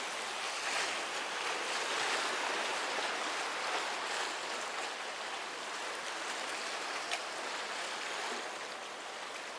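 Sea surf washing and splashing against the concrete tetrapods of a breakwater, a steady rush of water, with one small click about seven seconds in.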